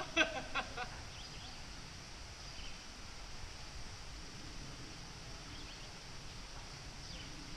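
Quiet woodland ambience with faint distant voices of people at a swimming hole. In the first second there is a quick run of four or five short pitched notes, then only a steady faint hiss.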